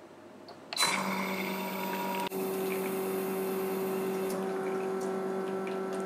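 Faema Faemina espresso machine starting its automatic pour-over cycle: its pump kicks in suddenly about a second in and runs with a steady hum, with a brief dip and a shift in its pitch a little over two seconds in, as hot water is pumped through the group head.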